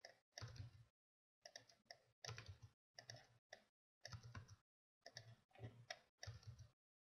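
Near silence: faint microphone room noise that keeps cutting in and out, in short stretches broken by dead-silent gaps.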